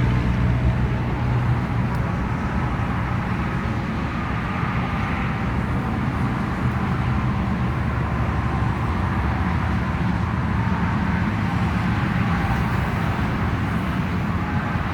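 Steady, continuous noise of freeway traffic streaming past, with no single vehicle standing out.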